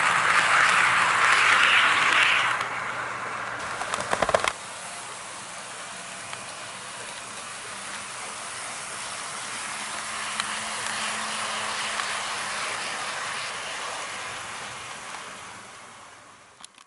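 HO-scale model train running on sectional track: a loud, steady rolling noise of the wheels and motor close by for the first two seconds, then a quick cluster of clicks about four seconds in, then a quieter steady running noise that fades away near the end.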